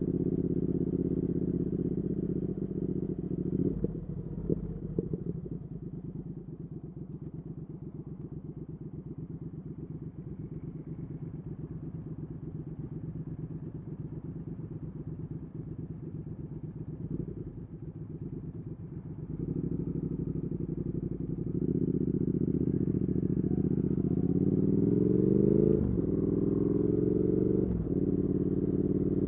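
Triumph Speed Twin 1200 parallel-twin engine through a Weslake Shorty Pro exhaust, heard from the rider's seat. A couple of quick throttle blips come about four seconds in, then a long stretch of quieter, lower running. It then grows louder, and the revs climb and cut off sharply at a gear change near the end, followed by another shift.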